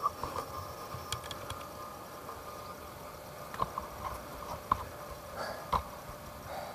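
Scattered short knocks and scuffs of a hiker scrambling up a steep rocky trail on hands and feet, over a faint steady insect hum.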